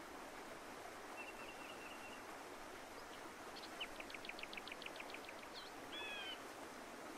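Faint outdoor ambience with a steady hiss and scattered bird calls: a short trill a little over a second in, a quick run of a dozen or so chirps around four to five seconds in, and a short call near six seconds.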